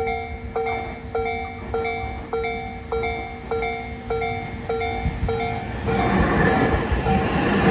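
Railway level-crossing warning bell ringing in a steady repeated ding about every 0.6 seconds; about six seconds in, the running noise of a Tobu 80000 series electric train rises under it as the train pulls into the station.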